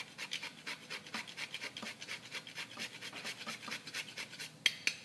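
Nutmeg grated on a microplane, quick rasping strokes about five a second, with a sharp tap near the end.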